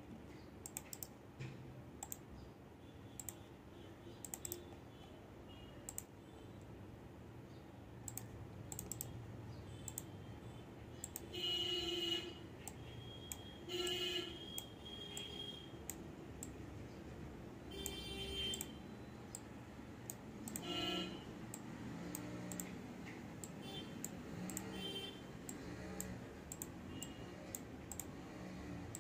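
Scattered sharp computer clicks from a pointer being used to select and drag text boxes. In the middle stretch come four brief louder sounds with a tone to them.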